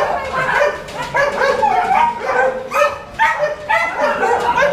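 Several caged dogs in a kennel block barking and yipping over one another, a dense, loud chorus of overlapping calls.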